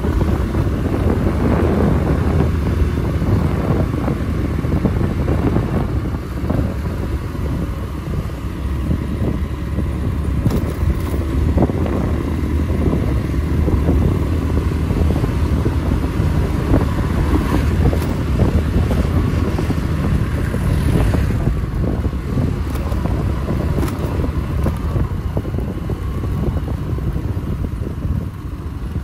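A motor vehicle on the move: steady low engine and road rumble, with wind buffeting the microphone.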